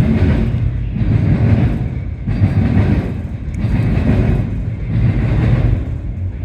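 CSX intermodal freight train rolling past: a loud, steady low rumble of the cars on the rails that swells and eases about every second and a half.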